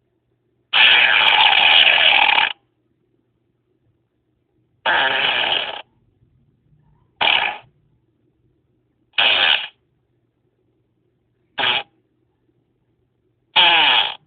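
A string of six fart sounds with silence between them. The first is a long, rough one of about two seconds; the other five are short, one of them only a brief blip near the middle.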